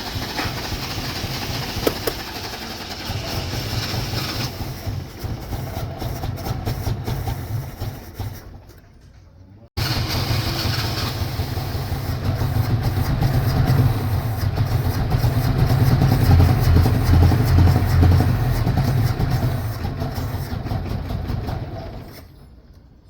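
A 1983 Chevrolet Chevette's engine running rough and uneven under pedal pumping, then dying away about eight seconds in. After an abrupt break it runs again, louder and lumpy, then dies out again near the end: a sputtering, misfiring engine that keeps stalling.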